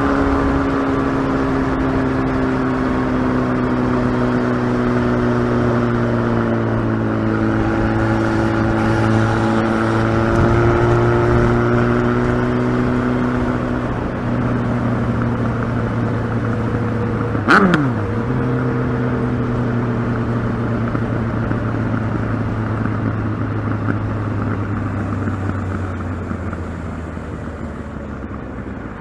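Kawasaki ZX-12R's inline-four engine running steadily, its pitch easing slowly down over the stretch. About two-thirds of the way through, a brief sharp sound sweeps steeply down in pitch. The engine sound fades a little near the end.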